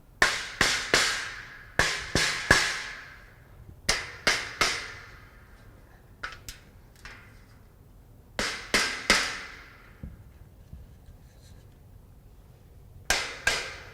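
Rubber mallet striking steel shelving parts, seating the shelf beams into the post slots: quick groups of two or three blows, each with a brief metallic ring.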